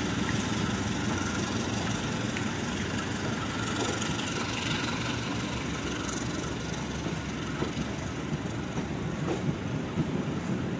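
Passenger train coaches rolling past at low speed, a steady rumble of wheels on rail with sharp clicks over the rail joints that come more often near the end.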